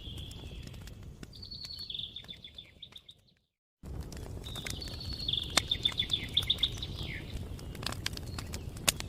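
Wood fire crackling with sharp scattered pops over a low rumble, while a bird trills twice in rapid pulsing phrases. Everything cuts out to silence for about half a second between the two phrases.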